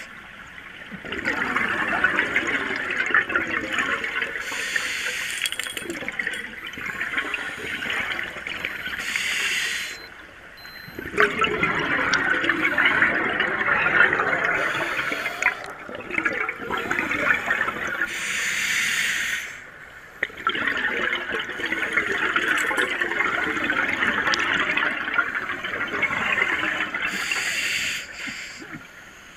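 A scuba diver breathing through a regulator, heard underwater: three long, bubbling exhalations, each followed by a short, quieter pause for the next breath.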